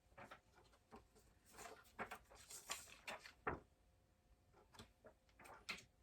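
Faint handling noises: scattered light clicks and rustles of a handheld plastic glowstick being handled, with a sharper click about three and a half seconds in.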